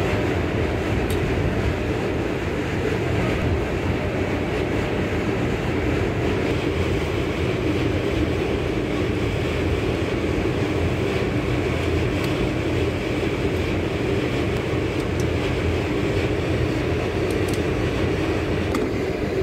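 Steady low background rumble, with a few faint clicks as main bearing cap bolts are run down by hand with a T-handle socket wrench.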